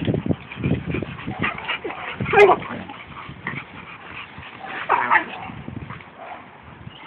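Two young pit bulls wrestling: growls, grunts and scuffling, with short pitched yelps about two and a half seconds in and again about five seconds in.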